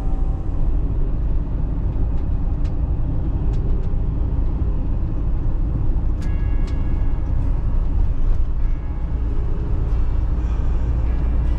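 Peugeot Boxer van driving on the open road, heard from inside the cab: a steady low engine and road rumble, with a short higher tone about six seconds in.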